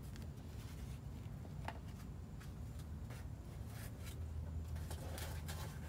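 Faint rustling and soft clicks of succulent plants and their packaging being handled while taken out of a shipping box, over a low steady hum.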